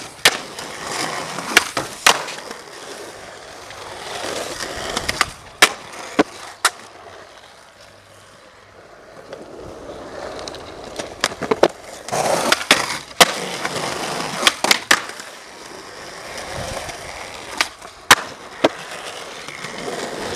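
Skateboard wheels rolling on smooth pavement, with a dozen or so sharp clacks of the board popping and landing. Near the start the trucks grind along the top of a wooden bench. The rolling fades down around the middle and comes back louder.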